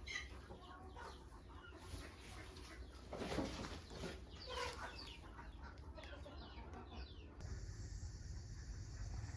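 Chickens clucking, a string of short calls. About seven seconds in, the sound cuts off and a steady low hum takes over.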